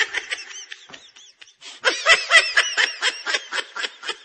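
High-pitched laughter: quick, repeated giggling bursts with a brief pause a little over a second in.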